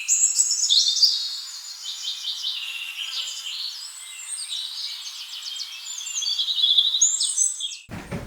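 Forest birdsong: several birds chirping, warbling and trilling in high, quickly changing calls that overlap, with a fast trill near the end.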